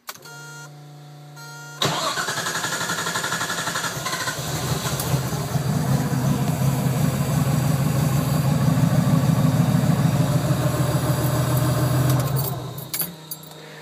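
Turbocharged RB30DET straight-six in a Datsun 280Z, on a factory RB25DET ECU. A steady fuel-pump hum at key-on gives way about two seconds in to the starter cranking with a whine. The engine catches after about two more seconds and idles steadily, then is switched off near the end.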